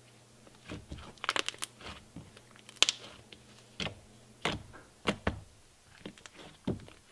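Thick, fluffy cloud-cream slime being pressed, stretched and squished by hand, giving irregular crisp clicks and small pops, clustered at first and sparser later.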